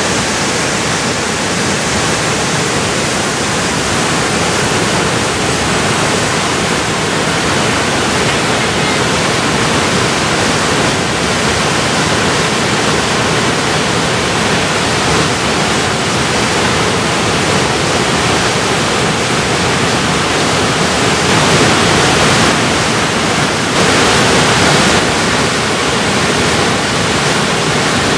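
Steady, loud rush of a tall waterfall plunging into its pool, spreading from low to high pitch and swelling a little about three quarters of the way through.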